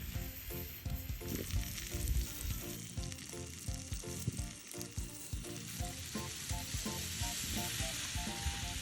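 Seafood sizzling and frying on a barbecue grill, a steady hiss. Light background music of short, separate notes plays over it.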